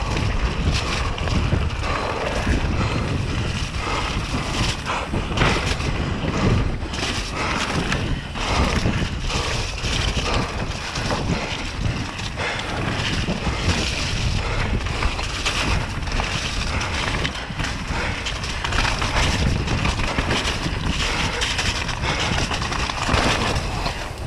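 Mountain bike descending a rough dirt trail at speed: steady wind rush over the camera microphone, with tyres rolling on dirt and frequent knocks and rattles as the bike hits roots and bumps.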